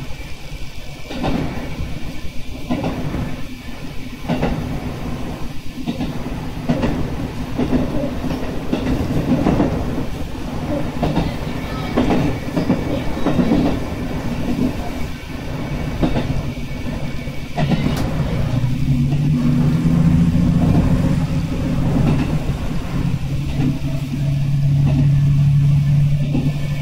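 Diesel railcar running on rails, wheels knocking over rail joints. About two-thirds of the way through, a low engine hum rises in pitch and then holds steady.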